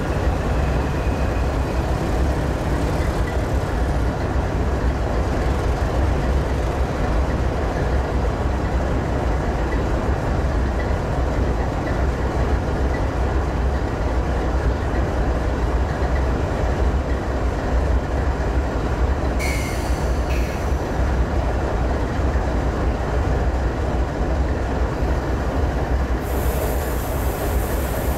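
Diesel-electric freight locomotives running as they move slowly along the track, a steady low engine rumble. A brief high squeal comes about two-thirds of the way in, and a hiss comes in near the end.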